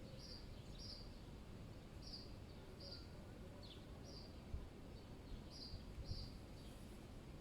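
A small bird chirping repeatedly, short high chirps about twice a second, faint over a low steady rumble of wind.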